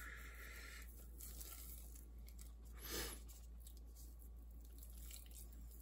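Faint soft handling sounds of hands rubbing a dry spice rub into a raw pork shoulder, with a brief louder rustle about three seconds in.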